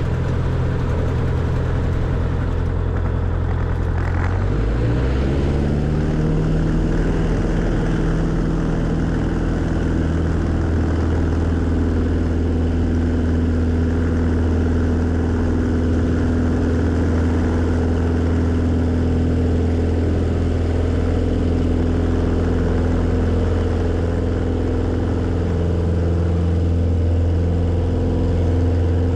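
Cessna 140 floatplane's 135 hp engine and propeller, heard from inside the cockpit, running at high power and then throttled back about four seconds in, its pitch falling and settling into a steady lower drone.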